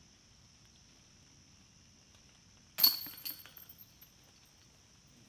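A putted disc strikes the chains of a disc golf basket about three seconds in, with a sharp clash and then a metallic jingling rattle of the chains that dies away over about a second.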